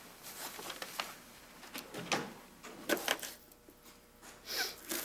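A few scattered knocks and clicks, then a kitchen knife chopping onions on a cutting board near the end.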